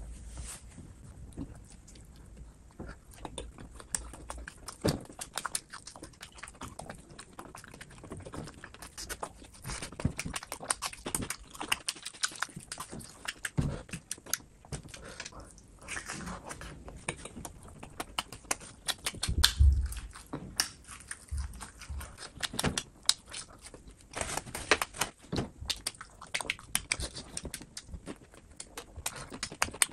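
Close-miked eating: chewing and biting on chicken feet, a dense run of irregular clicks and crackles. A louder dull knock comes a little under two-thirds of the way in.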